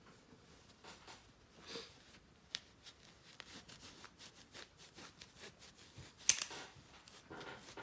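Polishing cloth rubbing and scraping on a sonic screwdriver prop, with light clicks and handling knocks from the prop being turned in the hands. The loudest is a sharp click and scrape about six seconds in.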